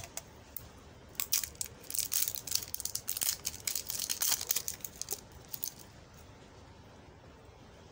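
Clear plastic wrap being peeled and torn off a tin of cream. Crinkling and crackling come in a dense run from about a second in and stop about six seconds in.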